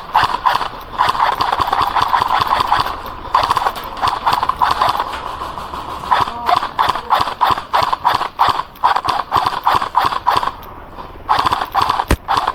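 Airsoft electric gun (AEG) firing long full-auto bursts, a rapid clatter of shots. There are about five bursts, the longest about four seconds, with short pauses between them.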